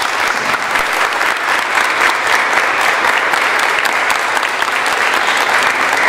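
An audience applauding in a hall: steady clapping from many hands.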